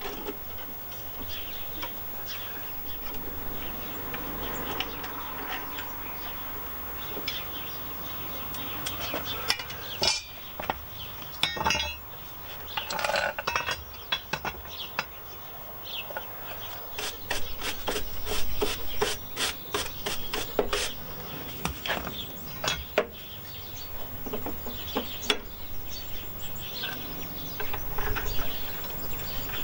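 Metal clinks and clicks from hand tools on a lawnmower's blade: a socket wrench working the blade bolt and the steel blade being handled. A dense run of quick clicks comes in the second half.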